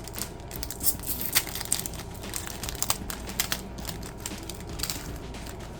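Wrapper of a trading-card pack crinkled and torn open by hand: an irregular run of crackles and sharp clicks.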